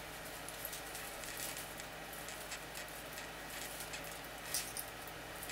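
Faint rustling and crackling of a white artificial Christmas tree's plastic branches being handled and pulled apart, with a couple of sharper crackles near the end, over a steady low hum.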